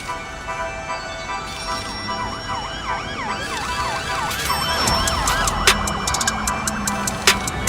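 Electronic background music: a siren-like synth wails rapidly up and down over held tones, then a heavier beat with sharp percussion hits comes in about five seconds in.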